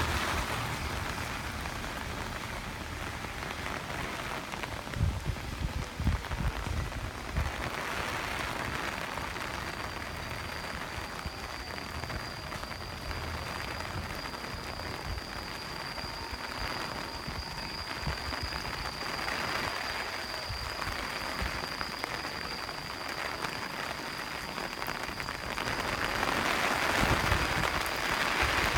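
Heavy typhoon rain pouring down, with gusts of wind now and then buffeting the microphone. A faint, steady high tone runs beneath it from about a third of the way in.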